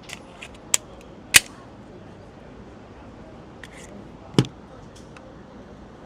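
Three sharp gunshots a few seconds apart, the loudest about a second and a half in and the last near the end with a short low boom, with a few fainter cracks between.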